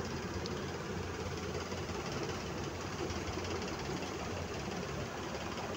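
Steady mechanical hum and noise from a running motor or engine, even throughout with no distinct knocks or changes.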